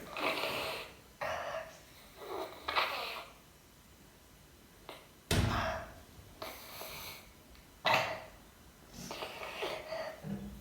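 Sleeping baby snoring: a run of noisy, wheezy breaths in and out, about seven in all, with a longer pause midway.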